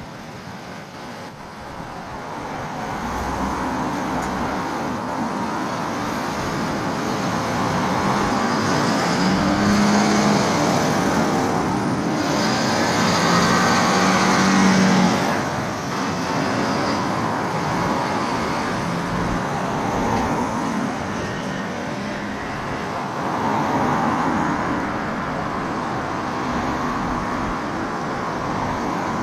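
Road traffic noise: a continuous rush of passing vehicles, building to its loudest around the middle and dropping off abruptly just after, then carrying on steadily.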